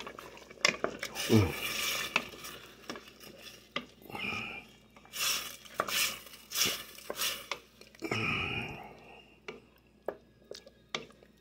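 A wooden spoon stirring thick tomato sauce with meatballs in a stainless steel stockpot: irregular scrapes and knocks of the spoon against the pot, with wet stirring swishes.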